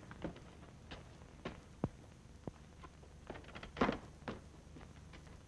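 Scattered footsteps and knocks on a floor as a man gets up from a bench and walks away, with a louder cluster of knocks about four seconds in, over the faint hiss of an old film soundtrack.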